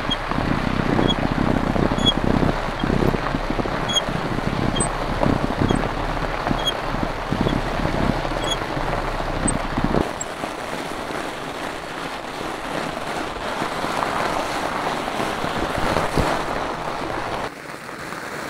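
Fat-bike tyres rolling over packed snow, with wind rumbling on the microphone. After about ten seconds this gives way to a steady crunching of snow as the bike is walked up the hill, and it falls quieter near the end.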